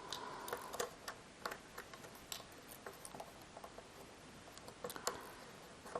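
Faint, irregular light clicks and ticks of small tools and plastic parts being worked at while prying a component out of an Apple Magic Mouse.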